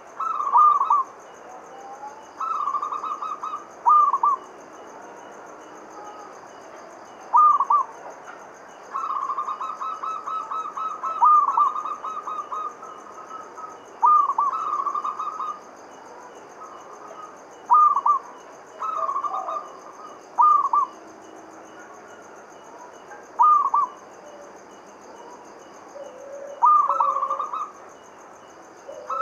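Local Javanese zebra dove (perkutut) cooing: repeated phrases of quick, rolling coos every few seconds, with a longer run about ten seconds in.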